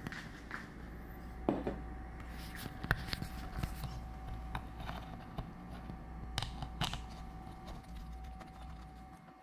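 Steady low hum with a faint steady high tone, and scattered sharp clicks and light knocks of small objects being handled.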